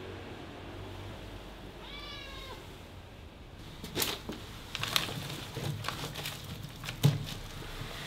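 A cat meows once, a short call that rises and falls about two seconds in. Then comes a spell of paper rustling and crinkling with a few soft knocks, the loudest about seven seconds in.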